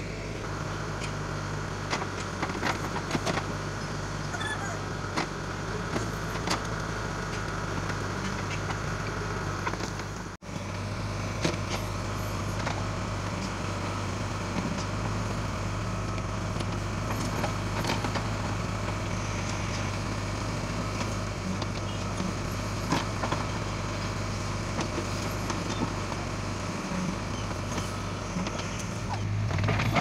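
Backhoe loader's diesel engine running steadily, with scattered clicks and knocks, dropping out for a moment about ten seconds in.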